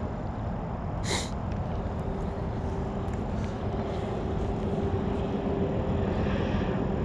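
Steady low outdoor background rumble with a faint steady hum, broken about a second in by one short, sharp hiss.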